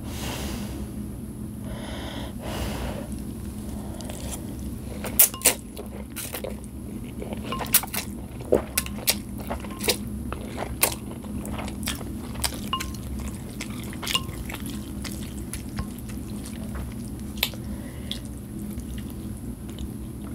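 Close-miked eating of chicken noodles: two soft breaths of blowing on a hot forkful near the start, then wet slurping and chewing with many sharp, irregular mouth smacks and clicks through the middle.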